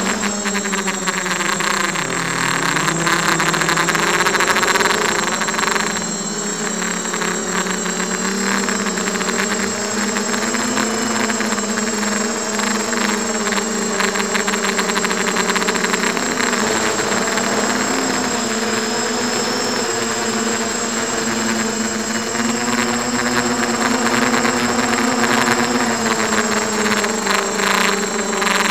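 Diatone 250 FPV quadcopter's Emax 1806 brushless motors and propellers buzzing in flight, heard through the onboard camera, the pitch dropping and climbing as the throttle changes, with a marked dip about two seconds in. A thin steady high whine sits above it.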